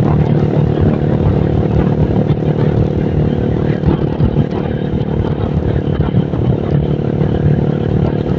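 Motorcycle engine running at a steady speed, heard while riding, with a flickering low rumble underneath.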